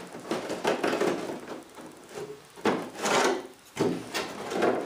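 Wooden part rubbing and knocking against the fiberglass nose of a model jet fuselage as it is worked into place by hand, in a few irregular bursts, the loudest about three seconds in.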